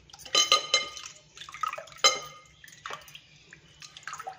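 Water splashing and dripping as handfuls of blanched spinach are lifted and squeezed out of a glass bowl of ice water. There are a few ringing clinks of the wire skimmer against the glass bowl, about half a second in and again near two seconds.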